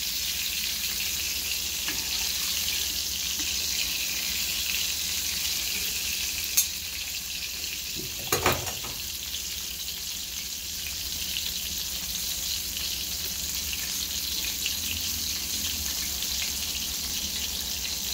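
Flour-and-cornmeal-breaded porgy fillets frying in hot oil in a skillet: a steady sizzle. A sharp tap comes about six and a half seconds in and a short knock about two seconds later.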